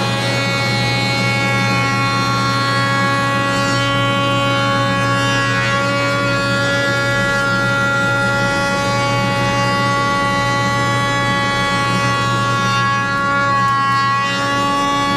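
Jointer and dust collector running with a steady, loud whine of several tones as a board is fed over the cutterhead.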